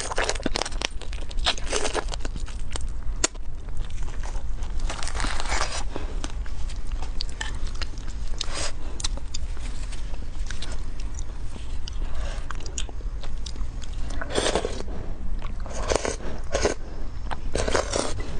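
Close-miked biting and chewing into small marinated crabs: the shells crunch and crackle between the teeth in irregular bursts, with wet chewing in between, over a steady low hum.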